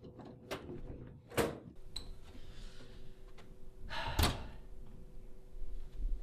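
A room door opening and shutting, with several sharp knocks, the loudest two about a second and a half and four seconds in.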